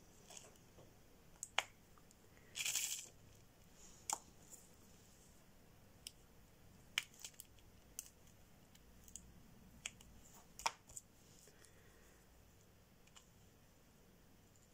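Faint scattered clicks and taps of a diamond-painting multi-placer pen picking up resin drills from a plastic tray and pressing them onto the canvas, with a brief rustle about three seconds in.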